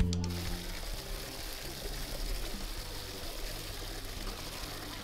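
Water pouring and splashing into a large basin of chopped greens as they are washed by hand, a steady rushing sound. A guitar tune fades out in the first second.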